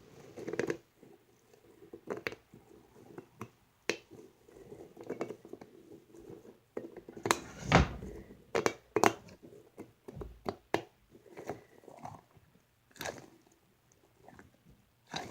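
A series of irregular crunches and sharp clicks, close to the microphone, with the loudest crunch a little before halfway.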